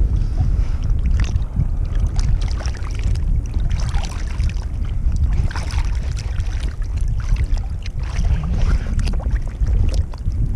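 Water sloshing and splashing close to the microphone as a gloved arm reaches down into the water, over a steady low rumble of wind on the microphone.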